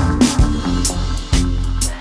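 Instrumental dub reggae music: a heavy bass line under drum-kit hits, with cymbal strikes cutting through the high end.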